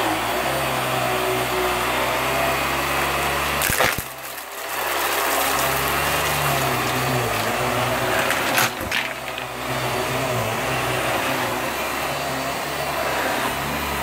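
Vax upright vacuum cleaner running on carpet, its motor and suction making a steady noise as it is pushed over the pile. There are two sharp clicks, about four seconds in and again near nine seconds, and the sound drops briefly after the first.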